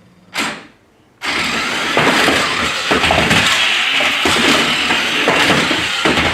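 Plastic remote-control stunt cars clattering and crashing, a loud, continuous rattling and knocking that starts abruptly about a second in after a brief quiet moment.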